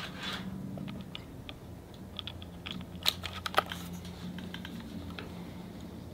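Light clicks and clacks of a .30-calibre PCP air rifle's action being handled while it is reloaded with a single slug. Two sharper clacks come about three and three and a half seconds in.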